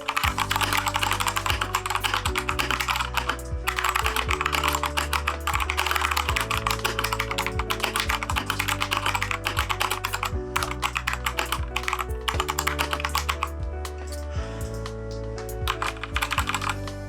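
Fast, continuous typing on a Keychron K2 mechanical keyboard fitted with factory unlubed Gateron switches, with brief pauses about three and a half and ten seconds in. Soft background music with sustained low notes plays underneath.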